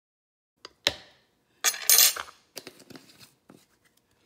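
Metal measuring spoons clinking and clattering while spices are measured into a food processor jar: a sharp click, a louder knock with a short ring about a second in, a loud rattle around two seconds in, then a few lighter clicks.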